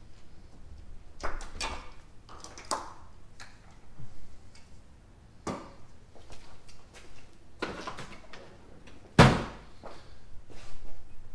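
Scattered knocks, clicks and clanks of tools and parts being handled during engine work, with one loud thud about nine seconds in.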